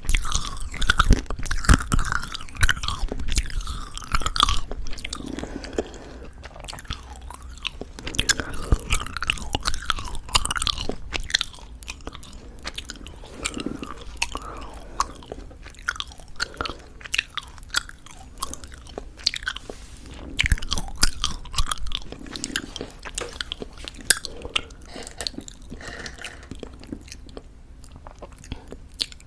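Close-miked chewing of crunchy-coated chewy jelly candies: irregular sharp crackles as the candy shell breaks, mixed with wet, sticky mouth sounds, with louder crunching clusters near the start, around a third of the way in and about two thirds in.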